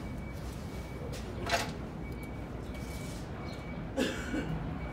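Short metallic knocks from a truck clutch pressure plate being handled inside the bell housing, one about a second and a half in and a louder one about four seconds in, over a steady workshop hum.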